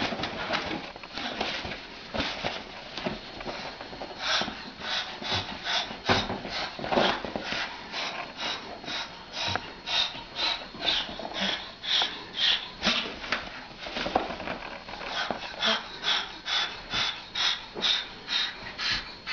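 A cockatoo calling at a cat in a long run of short, rasping cries, about two a second.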